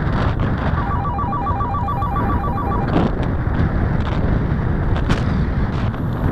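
Wind buffeting the microphone of a paraglider in flight. Starting about a second in, an electronic beeper gives a fast run of short beeps, about nine a second, for some two seconds, like a paragliding variometer's climb tone.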